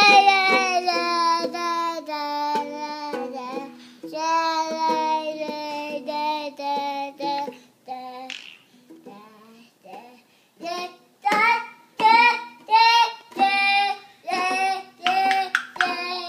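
A toddler singing loudly, first in long held notes that glide in pitch, then, after a quieter pause about halfway, in a string of short sung syllables about two a second.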